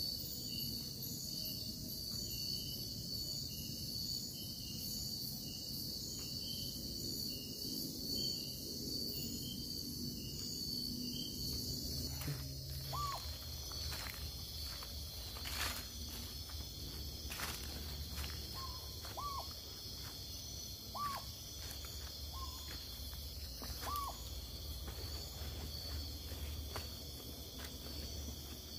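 Night-time tropical forest ambience: a steady chorus of crickets and other insects, with a pulsing trill in the first half. From about halfway through, an owl gives a short call every two to three seconds, often a soft note followed by a louder one, over a few faint clicks.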